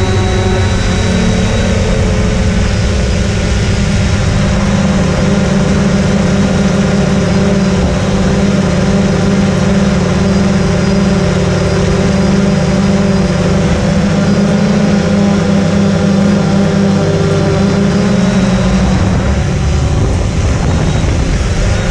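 3DR Solo quadcopter's electric motors and propellers humming steadily, heard from its own camera: a loud, even drone made of several steady pitches, which shift a little about 19 seconds in.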